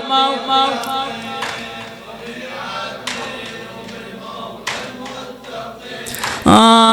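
A male reciter chanting an Arabic mourning elegy finishes his held line. A quieter stretch of group chanting follows, with a few sharp strikes. About six and a half seconds in, the lead voice comes back loud on the next line.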